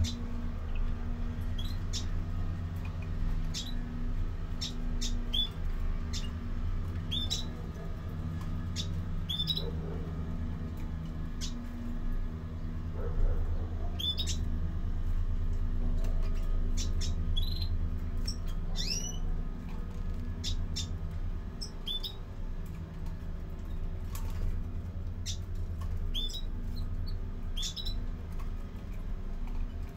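European greenfinches in a cage giving short, sharp rising chirps every second or two, over a steady low hum.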